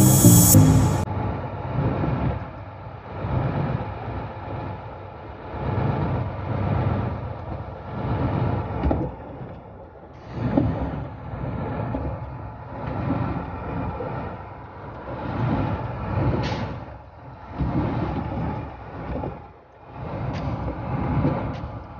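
Vehicle driving on a rough, muddy dirt road, heard from inside the cab, its noise swelling and easing about every two seconds. A piece of music cuts off about a second in.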